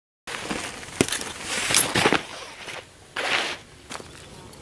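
Footsteps on loose gravel: a few uneven steps, with a sharp click about a second in.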